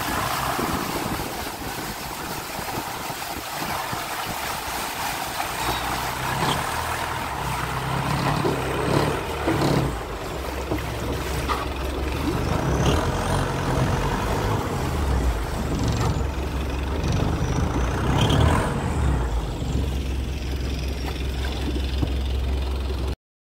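An engine running steadily under a rushing noise, its low hum growing stronger about six seconds in. The sound cuts off suddenly near the end.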